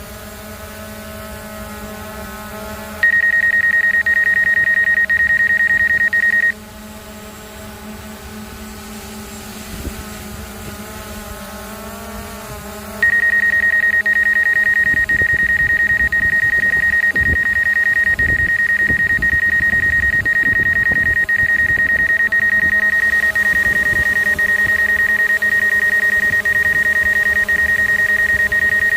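Steady hum of a DJI Air 2 drone's motors and propellers, with evenly spaced pitched lines that waver briefly before settling. A loud, steady high-pitched tone cuts in about three seconds in, stops a few seconds later, and comes back for the rest of the time, louder than the drone.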